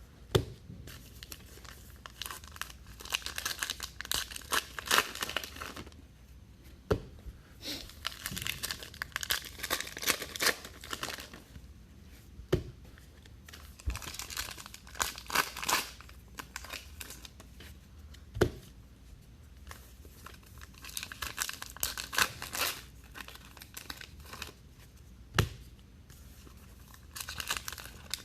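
Trading-card pack wrappers being torn open and crinkled by hand in bursts of a few seconds, pack after pack, with a sharp knock every five or six seconds.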